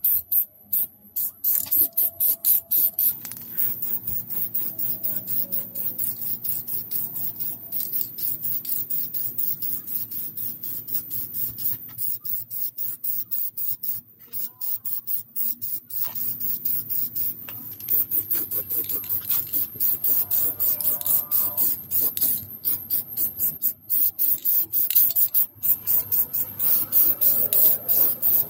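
Aerosol spray can of primer hissing in many short, rapid bursts.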